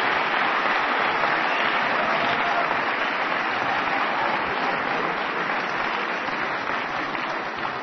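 Audience applauding, fading slowly toward the end.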